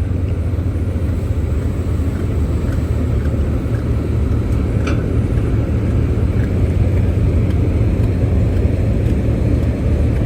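Steady low rumble of ships' diesel engines during docking, as tugboats work the large vessel, with one faint click about five seconds in.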